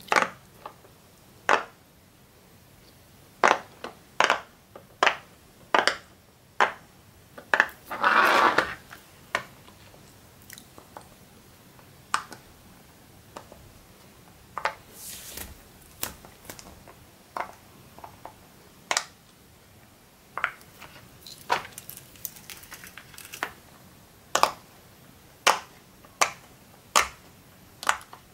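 Silicone pop-it fidget toy bubbles pressed in with fingertips, each giving a sharp pop, at an irregular pace of roughly one or two pops a second. A longer rustling burst comes about eight seconds in.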